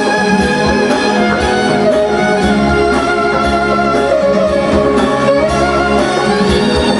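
Clarinet playing an ornamented melody with sliding, bent notes, over a band accompaniment.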